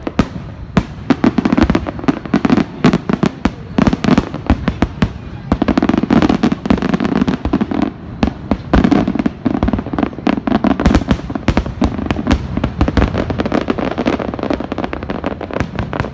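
Fireworks display: aerial shells bursting in a dense, rapid barrage of sharp cracks and booms with no pause. Several bursts overlap every second.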